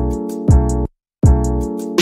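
Intro music: repeated chords over a deep bass with high ticking cymbal hits, a new chord starting about every three-quarters of a second, and a brief break just after a second in.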